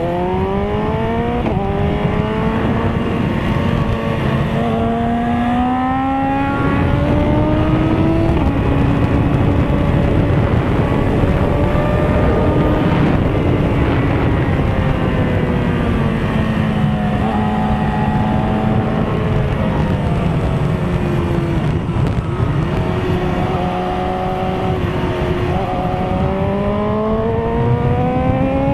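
Inline-four sport bike engine pulling hard, its pitch climbing through the revs, dropping at shifts and easing off, then climbing again near the end, under heavy wind rush on the microphone.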